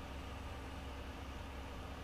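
A steady low hum with a faint steady tone above it, over a light even hiss.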